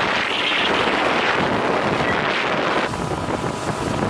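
Wind buffeting the microphone over the rush of water from a Sessa motorboat running at speed. The hiss turns duller about three seconds in.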